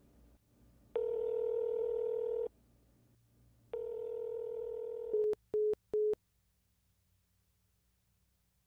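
Telephone ringback tone of an outgoing call ringing twice, then three short beeps as the call ends unanswered.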